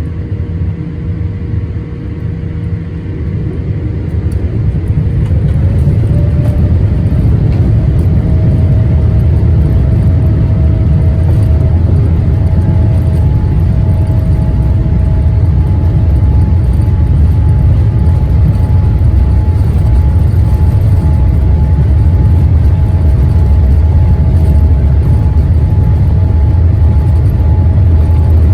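Boeing 787's General Electric GEnx turbofan engines running: a loud, low rumble that builds over the first few seconds and then holds steady. Faint whining tones sit above it; one rises a few seconds in, and a higher one joins about twelve seconds in.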